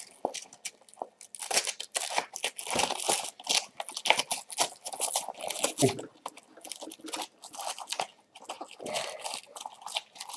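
Nylon MOLLE webbing and a fabric pouch being handled and pulled through a Velcro adapter plate: irregular rustling and scraping with short crisp rasps.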